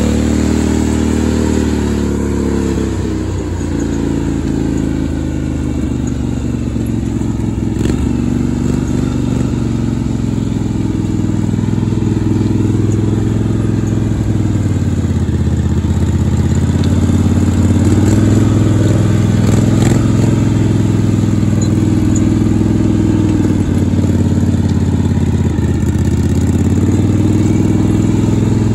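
Lifted lawn tractor's small engine running steadily while driving, its pitch dipping and rising again several times as the throttle and load change.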